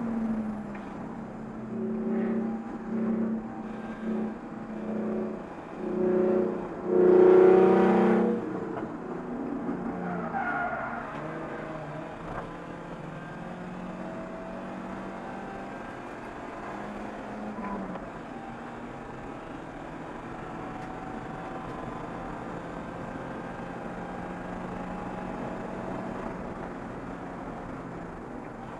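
Race car engine heard from inside the cockpit at speed on a circuit, with tires squealing through a corner in the first eight seconds, loudest about seven seconds in; after that the engine runs on steadily.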